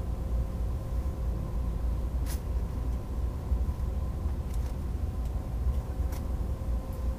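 Cabin noise inside a moving AVE Series 103 (Siemens Velaro E) high-speed train: a steady low rumble with a faint steady hum, broken by a couple of brief sharp clicks.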